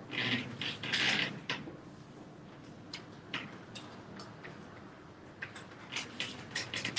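Sheets of paper rustling in the hands about a second in. Then a run of short chalk scratches and taps on a blackboard as figures are written.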